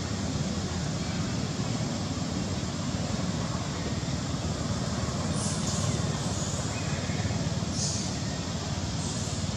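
Steady low rumbling outdoor background noise, with a few brief soft hisses in the second half.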